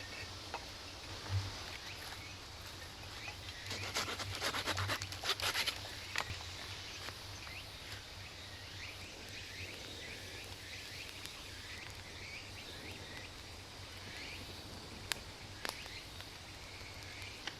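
Quiet outdoor woodland ambience with faint scattered bird chirps. About four seconds in, a couple of seconds of rapid scraping and clicking from something being handled, and two sharp clicks near the end.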